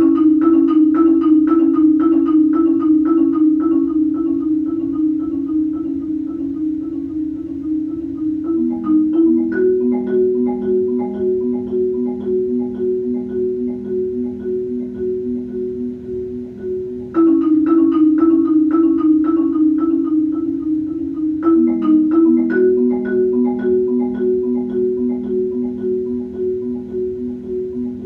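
Marimbas playing a fast, steady ostinato of repeated notes that begins suddenly. The lower notes shift to a new pattern about nine seconds in, and the opening figure comes back loudly at about seventeen seconds.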